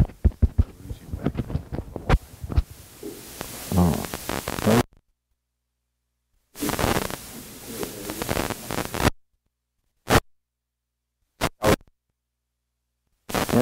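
A clip-on lavalier microphone on a vest being handled and adjusted: a run of scratchy rubbing and crackling clicks for the first few seconds. The signal then cuts out to dead silence several times, with short bursts of hiss between the dropouts.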